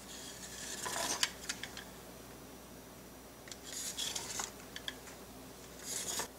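Knife blade drawn through a sheet of puff pastry dough and scraping on the surface beneath, in three strokes: about a second in, around four seconds, and near the end, with small clicks as the blade meets the surface.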